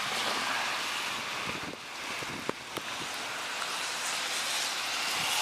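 Steady rushing of storm wind and rain, with two short clicks about two and a half seconds in.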